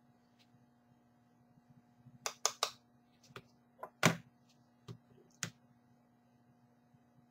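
A series of short clicks and knocks from makeup being handled: plastic compacts and a brush picked up, opened and set down on a table. There are three quick clicks, a few lighter ones, then the loudest knock about four seconds in and two more shortly after.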